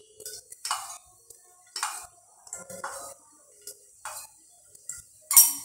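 A spoon clinking and scraping against a steel container as ghee is spooned into an aluminium pressure cooker, in short separate clinks about once a second, the loudest near the end.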